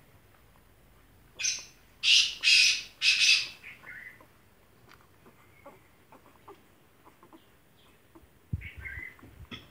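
Four loud, harsh bird calls in quick succession between about one and a half and three and a half seconds in, followed by a few softer, short falling chirps. Low thumps come near the end.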